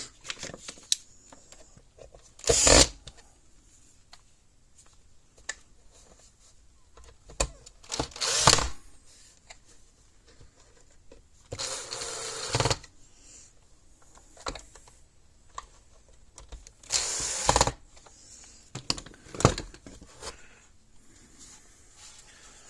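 Power drill running in five short bursts, each about half a second to a second long, with small handling clicks between them.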